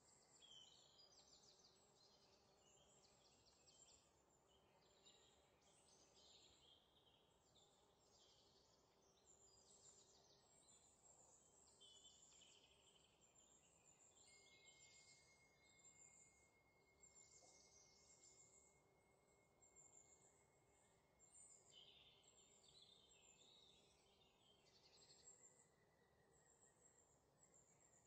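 Near silence, with faint high-pitched chirping throughout and a faint steady high tone from about halfway through until near the end.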